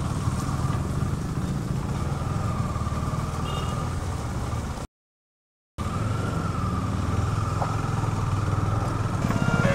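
KTM Duke 250's single-cylinder engine running steadily at low speed. The sound cuts out for under a second a little before halfway through, and music comes in near the end.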